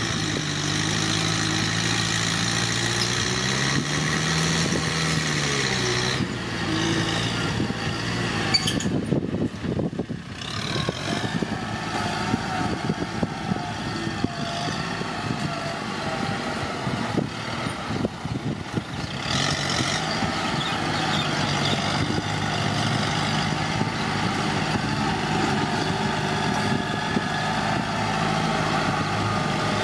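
Kubota farm tractor's diesel engine running under load while its front blade pushes and levels dirt. The engine speed rises and falls briefly a few seconds in, and there is a stretch of knocking and rattling around ten seconds in.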